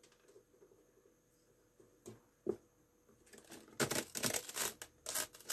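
A thin screwdriver scraping and crunching inside the fluorescent lamp channel of an LCD panel's metal frame, breaking up the thin glass CCFL backlight tube. Mostly quiet at first with a couple of faint clicks, then from about two-thirds of the way in a rapid run of crackling, scratchy clicks.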